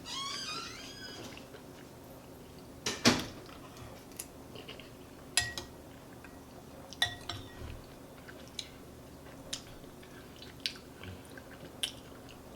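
Spoon or utensil clinking against a soup bowl, about seven separate knocks, a few of them with a short ringing tone; the loudest is about three seconds in. A brief high wavering sound comes in the first second.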